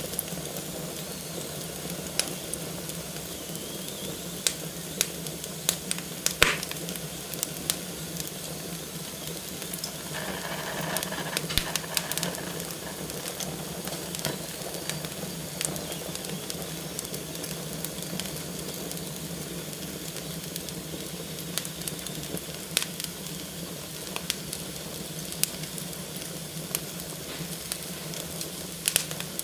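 Wood fire burning in a fireplace: a steady hiss with frequent sharp crackles and pops, the hiss swelling briefly about a third of the way through.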